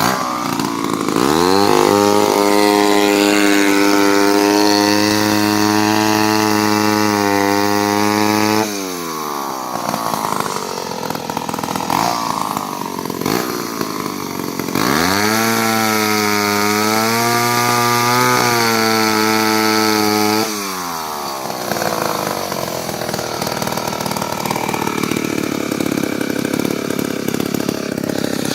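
Vintage Wards two-stroke chainsaw engine run up to a high, steady speed twice, each time for about six to seven seconds, dropping back to a rough idle in between and after.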